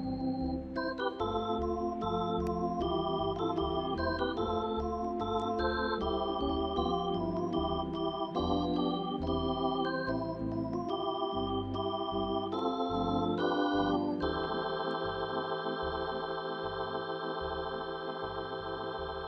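Ballpark organ playing a quick run of changing notes, then holding one long chord for the last few seconds.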